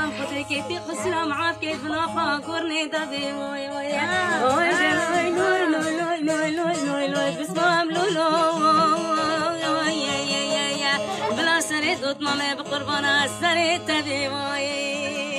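A woman singing a slow folk melody, her voice sliding and wavering through ornamented turns, over a steady low drone.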